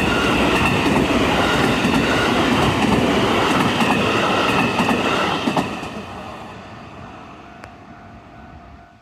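A train passing close by, its wheels clattering loudly on the rails. About five and a half seconds in it begins to fade away as it moves off.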